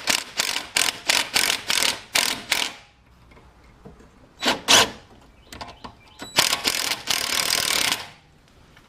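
A power wrench (the mechanic's "gun") run in short bursts on a sway bar link's lock nut, then in one longer run of about two seconds. It does not tighten the nut: the link's ball-joint stud turns with it.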